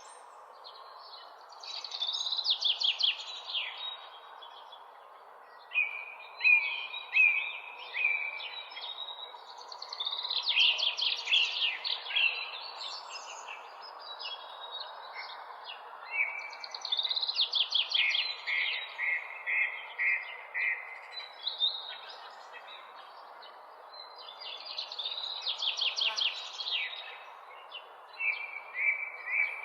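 A songbird singing short, repeated trilled phrases every few seconds over a steady hum of distant city noise.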